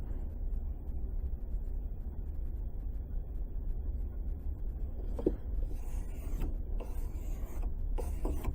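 Knife blade stroked across 600-grit sandpaper, a series of short rubbing strokes starting about five seconds in, over a steady low hum; the strokes raise a burr on the edge.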